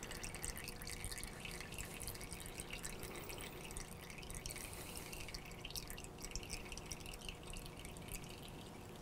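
Old fork oil trickling and dripping in a thin stream from an upturned motorcycle fork tube into a plastic jug, faint, as the fork is drained.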